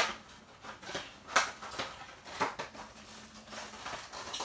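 Toy packaging being handled and opened by hand: a handful of short, sharp clicks and rustles at uneven intervals.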